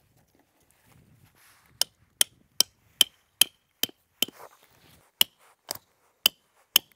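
A hatchet head striking a metal tent stake, driving it into the ground. There are about a dozen sharp, ringing clinks, roughly two and a half a second, with a short pause midway, after faint rustling at the start.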